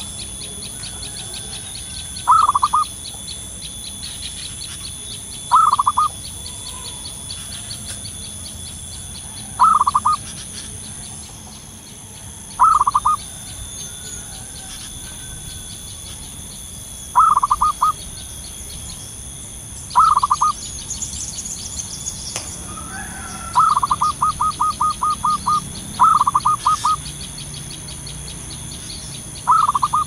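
Zebra dove (perkutut) cooing: short runs of rapid, clipped notes repeated about every three seconds, with one longer run of about ten notes near the end.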